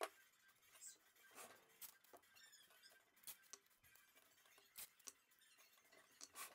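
Near silence with a few faint clicks and small squeaks.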